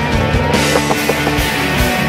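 Rock music soundtrack with a steady beat.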